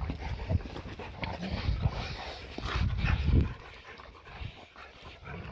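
Several Rottweilers panting and breathing hard as they bite and tug on a bite pillow tied to a leash, with irregular low scuffling and tugging noises that are loudest about two and three seconds in.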